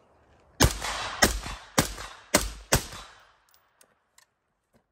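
Suppressed FoldAR folding AR-15 rifle firing five quick shots about half a second apart, each trailing off briefly.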